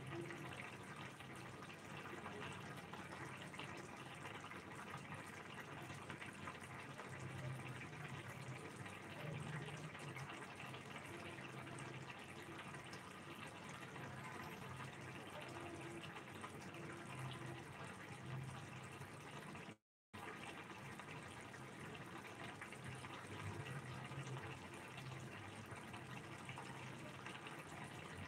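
Egg curry gravy simmering in a pan on a gas stove, a steady soft bubbling and crackling with a low hum underneath. The sound cuts out for a moment about two-thirds of the way through.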